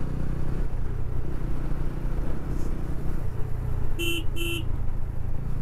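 TVS Ronin's single-cylinder engine running steadily under wind rush while riding, with two short horn beeps about four seconds in.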